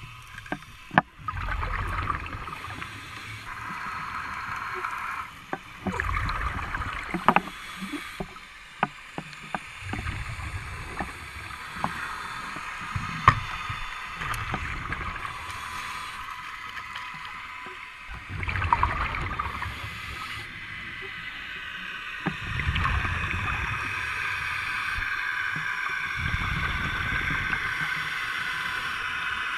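Underwater sound through a diver's camera: low rumbling bursts a second or two long that come and go every few seconds, scattered sharp clicks and knocks, and a steady hiss that grows stronger in the last third.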